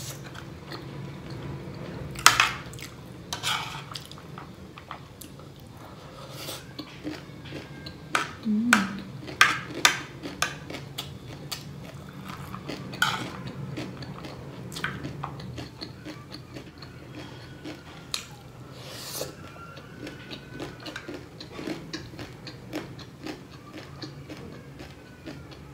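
Metal spoon clinking and scraping against a plate while stirring and scooping chatpatey, a crunchy spicy snack mix, with chewing in between. The taps come irregularly, several in quick succession about a third of the way in, over a faint steady low hum.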